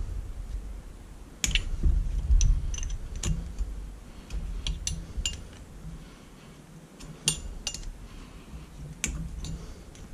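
A wrench clinking against the steel bolts and metal body of a Sanden 709 A/C compressor as its 10 mm front bolts are worked loose: scattered sharp metal clicks over low handling noise as the unit is turned in the hands.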